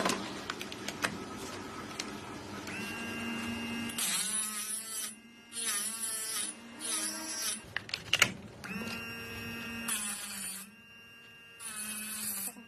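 A Vikhr electric multi-purpose sharpener's motor runs with a steady hum. About five short bursts of grinding come as blades are drawn through its sharpening guide against the stone.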